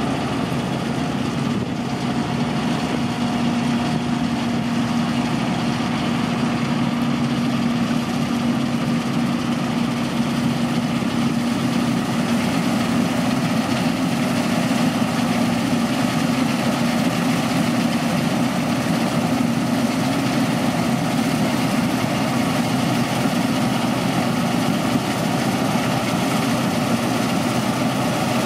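John Deere 975 combine harvester running steadily while cutting and threshing spring barley: a continuous even engine and machinery hum with a steady low tone.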